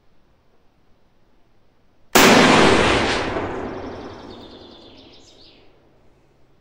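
A single rifle shot from a Yugoslav Mauser M48A in 8x57 IS, firing a handload of period bullet and period powder, about two seconds in; the loud report rings out and dies away over some three seconds.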